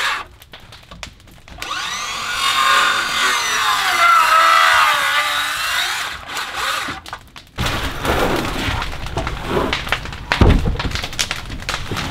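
Handheld circular saw spinning up and cutting across a rough-sawn 2x6 rafter board, its whine sagging in pitch as the blade bites into the wood, then stopping about six seconds in. Knocks and handling noise follow, with one heavy thump near the end.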